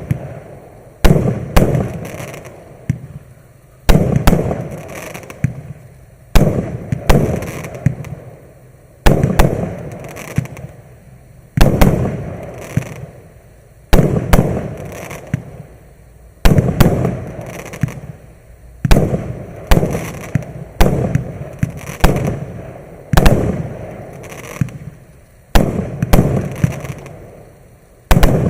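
Maxsem MC146 'Explosive' fireworks battery firing shot after shot: a loud, sharp bang about every one to two and a half seconds, each followed by a fading rumble.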